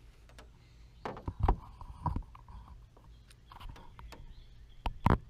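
Camera handling noise as the camera is moved and set down on a Jeep's wet hood: a few sharp knocks and thumps, loudest about a second and a half in and again near the end.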